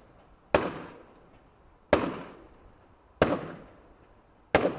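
Fireworks exploding at a distance: four sharp bangs about a second and a quarter apart, each trailing off in an echo.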